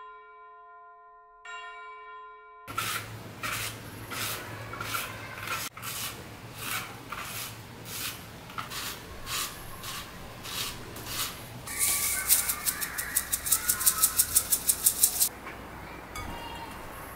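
A short two-part chime, then a handheld rotary spiralizer cutting zucchini into noodles over a glass bowl, with a crunching stroke about twice a second. About twelve seconds in comes a quicker, louder run of clicks, then the softer sound of hands tossing the salted zucchini noodles.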